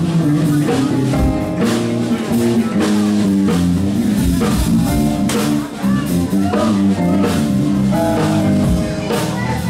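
A funk band playing live, with electric bass guitar and drums.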